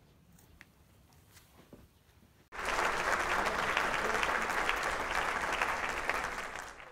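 Applause from a crowd, many hands clapping, cutting in suddenly about two and a half seconds in and fading out near the end. Before it, only faint room sound with a few small clicks.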